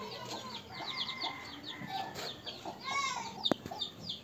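Chickens clucking in the background, with quick high chirps throughout. A single sharp click stands out about three and a half seconds in.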